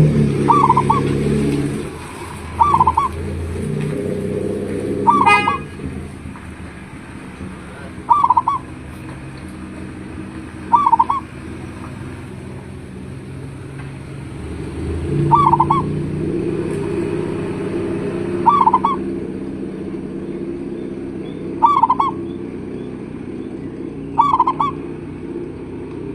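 Zebra dove (perkutut) calling: short trilled coos repeated about every two to three seconds, about ten in all. Underneath runs a steady low engine hum, louder near the start and again from about halfway.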